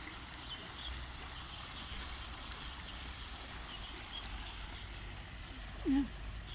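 Steady outdoor background noise: a low rumble under an even hiss, with a few faint high chirps and a short vocal sound about six seconds in.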